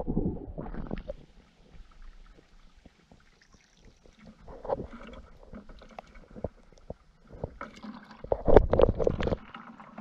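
Splashing water and handling noise as a crawdad is picked out of a mesh dip net and dropped into a bucket of water with other crawdads. It comes in uneven bursts, loudest for a second or two near the end.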